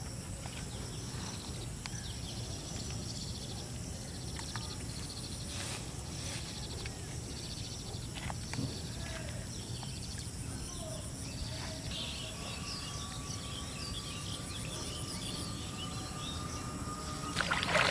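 Outdoor ambience with a steady low background noise, small scattered clicks and a fine high insect-like trill. About two-thirds of the way in, birds start chirping, a faint steady tone comes in beside them, and a brief louder noise sounds just before the end.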